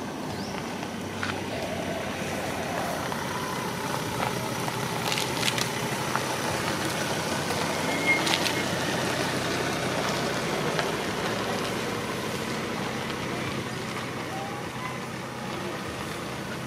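Steady outdoor background noise with a low hum, marked by a few short sharp clicks around the middle.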